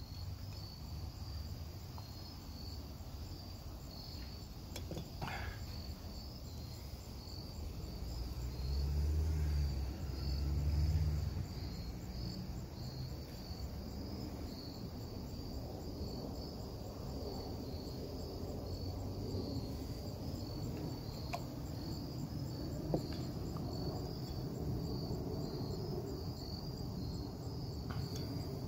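A steady, high-pitched, evenly pulsing chorus of insects chirping outdoors, with a low rumble about a third of the way in.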